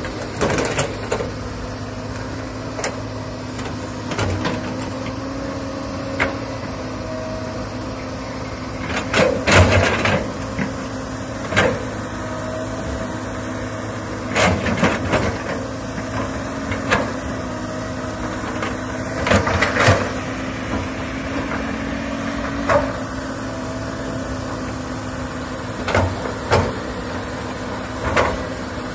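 Komatsu hydraulic excavator's diesel engine running steadily under load as it digs soil. Sharp knocks and clanks from the digging come every few seconds, often in pairs.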